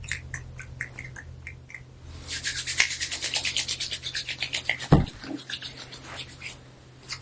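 A fast run of scratchy rubbing strokes, about ten a second, lasting some two and a half seconds in the middle, then a single low thump, with faint light ticks before and after over a steady low hum.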